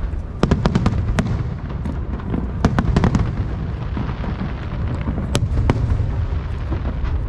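Aerial fireworks going off: a quick run of sharp cracks about half a second in, another cluster around three seconds in, and two single bangs a little after five seconds, over a steady low rumble.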